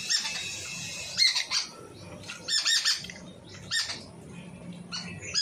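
Short, high-pitched animal calls, repeated in about five quick groups.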